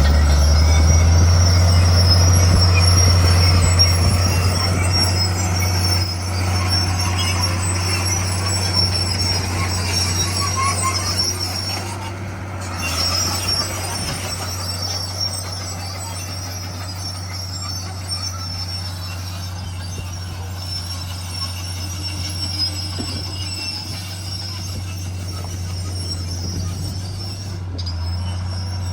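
Komatsu D41 crawler bulldozer's diesel engine running steadily, with a high steady squeal from its steel tracks.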